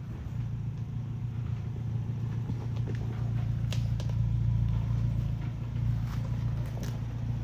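Off-road truck engine running at low speed with a steady low rumble that swells a little midway. There are a few faint scattered clicks and knocks.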